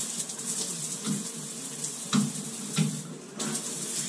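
Shower head spraying water onto the tiles in a steady rush, with a brief dip a little after three seconds in. The head runs freely, just cleared of the pipe-dope debris that was choking its pressure.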